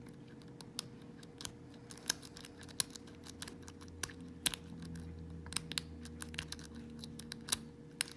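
Sparrows Bogota rake being raked in and out of an old Corbin padlock's keyway, with the pick and tension wrench scraping and clicking against the pin tumblers: a string of irregular sharp metallic clicks, a few much louder than the rest.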